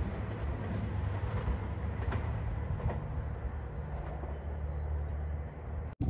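JR 2700-series diesel express railcars rumbling steadily, with a few faint clicks from the rails.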